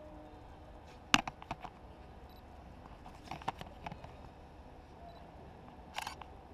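Camera handling noise: three short clusters of sharp clicks and taps, the first about a second in and the loudest, the others in the middle and near the end, over faint outdoor background.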